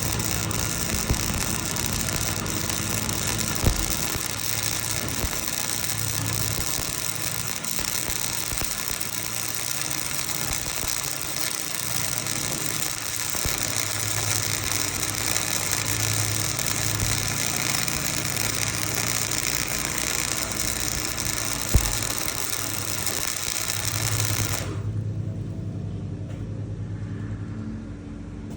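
A motor running steadily with a low hum and a strong hiss over it; the hiss cuts off suddenly near the end while the hum carries on. Two sharp knocks stand out along the way.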